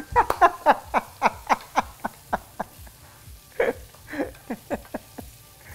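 A man laughing: a run of quick "ha" bursts, about four a second, fading over the first three seconds, then two more short laughs a little later.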